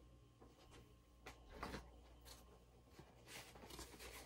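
Near silence: room tone with a low hum and a few faint, short knocks and rustles.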